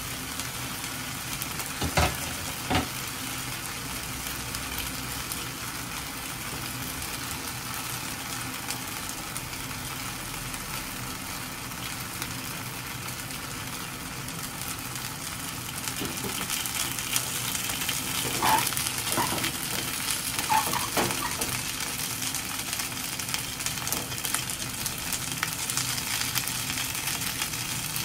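Gyoza sizzling in an uncovered frying pan. The sizzle grows louder about halfway through, as oil is poured around the dumplings. Two sharp knocks about two seconds in, and a few clicks later on.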